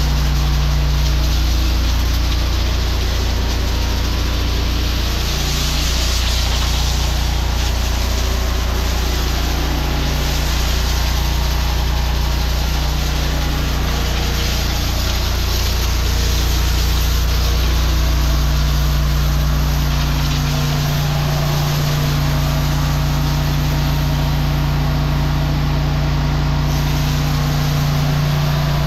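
A high-pressure drain jetter's engine running steadily, with the hiss of water spraying from a hose onto a concrete floor, the spray louder at times.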